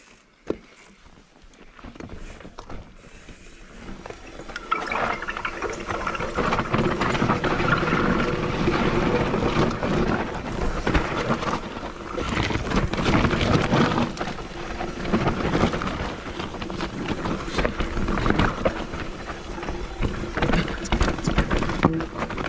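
Full-suspension mountain bike riding down a rocky dirt trail: tyres crunching over dirt and stones and the bike rattling over bumps, with wind rumble on the camera microphone. Fairly quiet for the first few seconds, then much louder from about four seconds in as the bike picks up speed.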